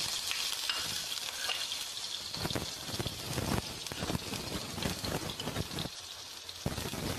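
Minced garlic sizzling in hot oil in a frying pan: a steady hiss with scattered crackles, thickest through the middle.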